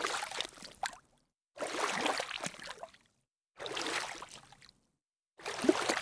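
Water splashing in four separate bursts about two seconds apart, each lasting around a second and tailing off, with silence between them.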